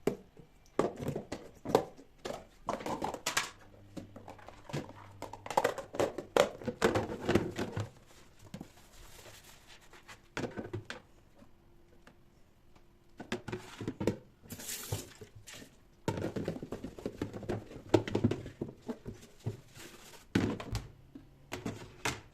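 Household objects being handled: repeated knocks, clicks and thunks of things being picked up and set down, with some rustling, in irregular bursts with short pauses between them.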